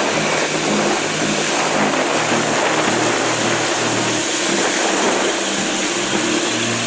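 Steady jet engine noise from a Boeing 787 Dreamliner taxiing past.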